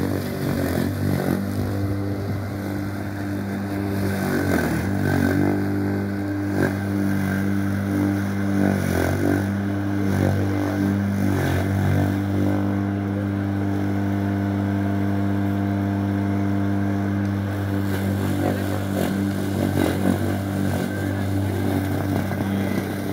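A 5 hp lawn mower engine running at a steady speed, with occasional brief clatters over it.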